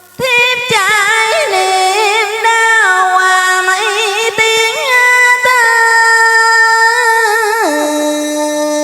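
Music: a melody of long, held notes with a quivering vibrato, stepping down to a lower note near the end, with a few sharp plucked string notes.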